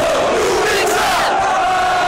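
Football supporters chanting together from within the stand: a loud mass of voices holding drawn-out notes, with a brief swell of higher shouting about halfway through.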